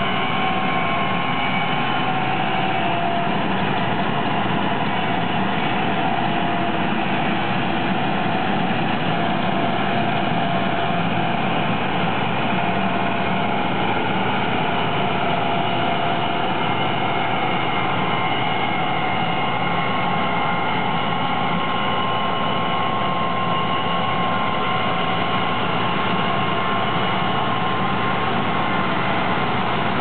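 Gleaner R62 combine harvesting soybeans: its engine and threshing machinery run at a steady working pitch, a continuous drone with a high steady whine over it.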